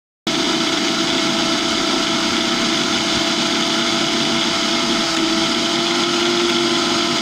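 Mixer grinder's brushed universal motor running steadily on test, a loud even running sound with a few held tones that cuts in abruptly about a quarter second in. It runs again now that its blown overload circuit breaker has been replaced.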